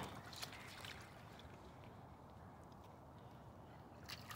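Faint splashing of a German shepherd wading through a shallow puddle, with a couple of short, louder splashes near the end.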